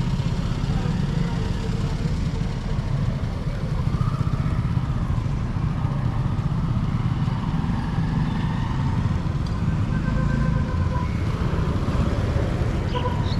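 Motorcycle engine running with a steady low drone, and faint voices in the background.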